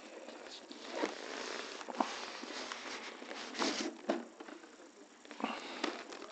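Handling noise as a drone's polystyrene foam carrying case is lifted out of its cardboard box: foam scraping and rubbing against cardboard, with a few light knocks. The rubbing fades after about four seconds, and a last knock comes later.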